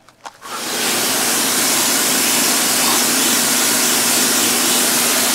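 Small electric Ryobi pressure washer starting up: a couple of clicks, then a steady hiss of the water jet with a low pump hum under it, building to full strength within about a second, as it rinses paint stripper off the truck cab.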